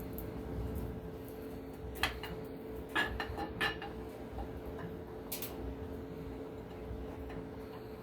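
Camshaft being eased by hand into a Ford 351 Windsor block, its lobes and journals clinking lightly against the cam bearings: one click about two seconds in, a quick cluster a second later and another near the middle, over a steady low hum.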